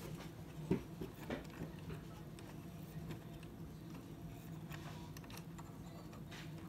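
Plastic parts of a hand-cranked 3D-printed toy crane clicking and ticking faintly as its hoist winch is turned and the container is lifted. There is one sharper knock about a second in.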